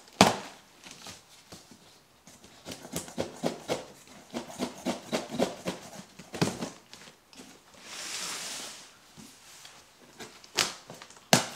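Packing material and a box being handled while a coffee grinder is unpacked. There is a sharp knock at the start, then a run of small clicks and rustles, a short hissing scrape a bit past the middle, and two more sharp knocks near the end.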